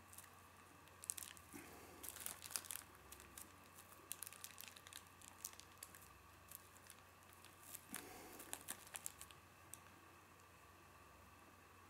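Thin plastic bag film crinkling and crackling faintly as it is handled and stretched over a stick, in short irregular rustles that stop about nine or ten seconds in.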